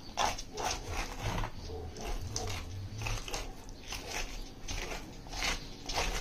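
Knife cutting along a large salmon's backbone: a run of short, uneven scrapes and crunches, roughly two a second, as the blade works the fillet off the bone.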